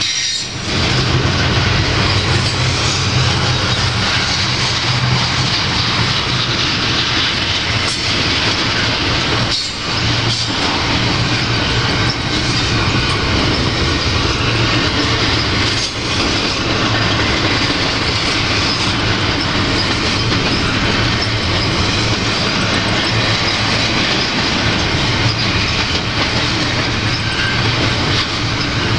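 Double-stack intermodal freight train cars rolling past: steady noise of steel wheels on the rails with a constant low rumble underneath.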